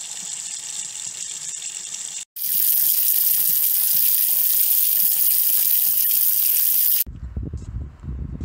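Steady hiss of running water through a phone microphone, cutting in abruptly, dropping out for an instant a little over two seconds in, then returning much louder and brighter until it cuts off abruptly about seven seconds in, leaving low wind rumble.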